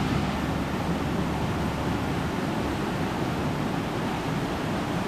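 Steady rushing of a small woodland stream cascading over rocks.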